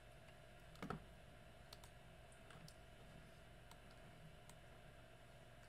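Near silence with faint computer mouse and keyboard clicks: one sharper click about a second in, then a few scattered soft ticks.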